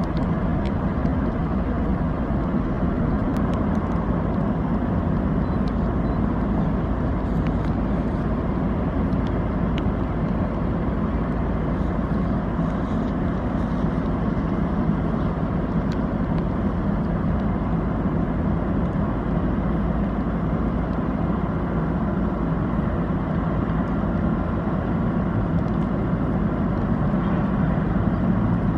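Steady low rumble of ship engines, unchanging throughout, with a faint hum above it.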